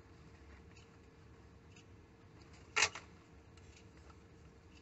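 Quiet handling sounds of fingers working bucktail hair on a tube held in a vise, with a few faint ticks and one short, sharp click a little under three seconds in.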